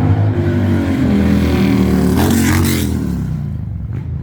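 Harley-Davidson Street Bob V-twin with a new open aftermarket exhaust running loud, its engine note shifting up and down as the throttle changes. There is a brief rush of noise near the middle, and it eases off slightly toward the end.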